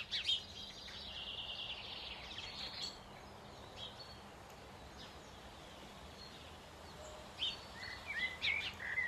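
Small birds chirping and twittering in short bursts, busiest in the first few seconds and again near the end, over a steady rustle of wind in foliage.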